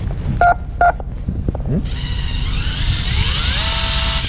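Electric fishing reel: two short beeps from its control buttons, then its motor whine rises as it spins up and holds steady as it winds in line.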